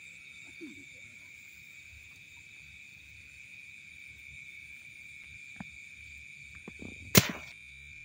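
Steady high-pitched night chorus of frogs and insects in a rice paddy. About seven seconds in comes a single sharp crack, the shot of a PCP air rifle.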